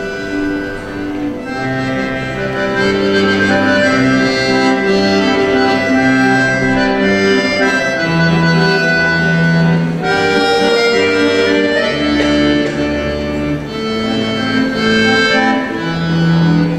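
Accordion playing an instrumental passage of a slow song: held chords over a moving bass line, the notes changing every second or so.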